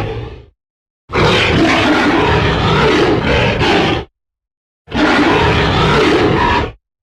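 King Kong sound-effect roars. One fades out just after the start, then come two separate roars of about three seconds and two seconds, each cut off into silence.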